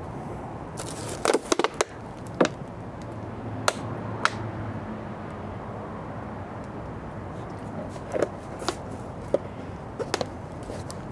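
Thin plastic water bottle crinkling and crackling in a hand as it is squeezed to water a seedling. The crackles come in short scattered clicks, a quick cluster about a second in and more near the end, over a steady low hiss.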